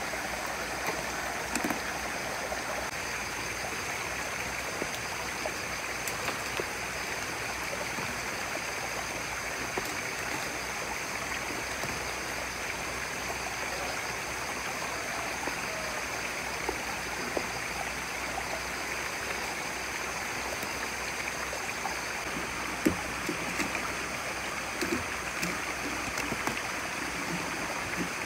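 Steady rush of running water, like a stream, with a few light knocks in the last few seconds.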